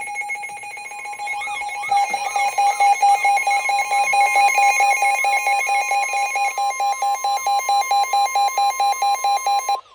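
Electronic emergency alert tone: a loud two-tone alarm that pulses rapidly, about four beeps a second, with a warbling wail over it in the first few seconds, then cuts off suddenly near the end.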